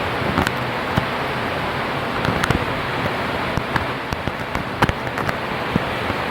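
Heavy rain falling steadily, a dense hiss, with scattered sharp taps of drops hitting a hard surface close by.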